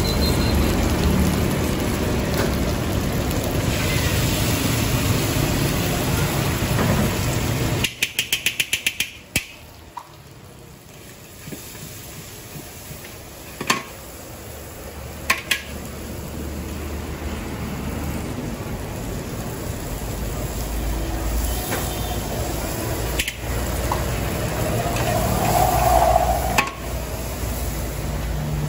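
Wok cooking in a large steel wok: liquid poured onto the hot pan sizzles, and a steel spatula clatters and scrapes against the pan. About eight seconds in comes a quick run of about eight taps, after which the sizzle drops sharply and slowly builds back.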